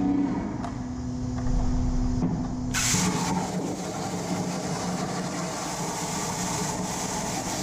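JD Squared MAD 5x10 CNC plasma table cutting metal plate: after a steady hum, the plasma torch's arc strikes suddenly about three seconds in and runs on as a steady loud hiss while it cuts.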